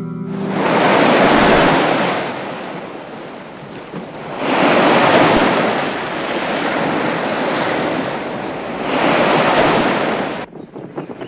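Storm wind and surging sea waves, swelling three times about four seconds apart, then cutting off suddenly near the end.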